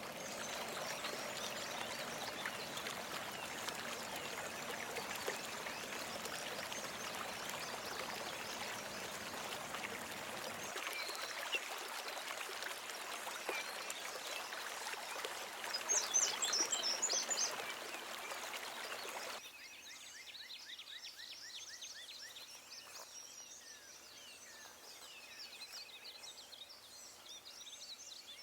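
Night-time outdoor ambience: a steady hiss, with a short burst of high chirping calls about sixteen seconds in. After a sudden drop in level near nineteen seconds, a quieter background carries fast, evenly repeated high calls from small animals.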